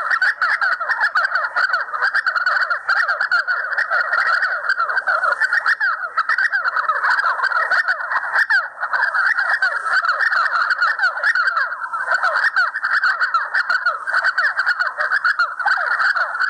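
Several grey partridges calling together: a dense, unbroken chorus of rapid, overlapping chattering calls with no pause.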